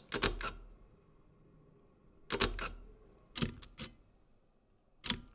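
Mechanical focal-plane shutters of a Fujifilm GFX100 and then a GFX100S firing: about four separate shutter releases, each a quick cluster of sharp clicks, the earlier ones with a low thump under them. The GFX100's shutter packs more of a punch and the GFX100S's sounds more gentle; they are different shutter mechanisms.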